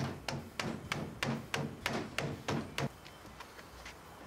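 Rubber mallet tapping a mud motor's output shaft into its coupler housing: about ten quick, even taps, roughly three a second, stopping about three seconds in. The taps seat the shaft to take out its forward and back play.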